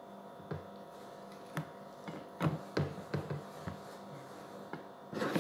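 Scattered light clicks and taps of hands handling fried fish and plates at a table, about a dozen spread unevenly, over a steady low hum.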